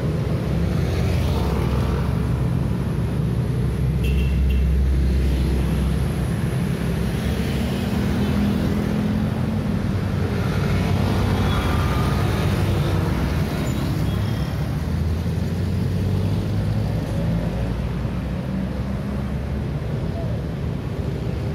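Road traffic on a busy city street: cars and motorcycles driving past in a steady stream of engine and tyre rumble. The rumble swells as vehicles pass close, about four seconds in and again about fifteen seconds in.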